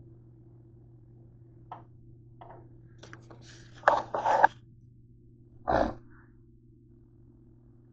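Fingers rubbing and knocking against a small camera as it is picked up and repositioned: a few small clicks, then a loud cluster of scrapes and knocks, then one heavier thump as it is set down. A steady low hum runs underneath.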